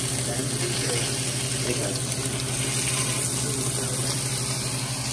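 Salmon pieces sizzling in hot oil in a cast iron skillet: a steady hiss, with a steady low hum underneath.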